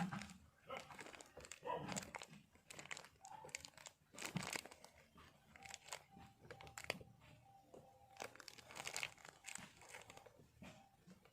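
Scattered small clicks, scrapes and rustles of hands working on an amplifier circuit board.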